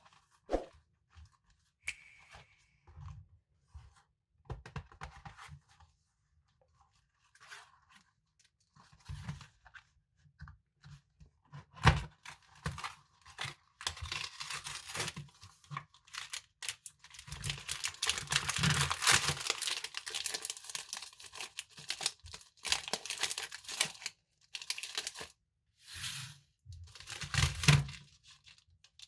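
Snack packaging being handled, torn open and crinkled: scattered crinkles and rustles, with a longer, denser stretch of rustling about two-thirds of the way through.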